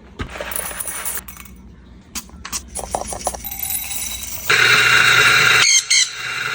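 Clinks and taps of coffee-making gear, then a coffee machine running with a loud, steady whir and hum from about four and a half seconds in. It cuts out briefly near the end.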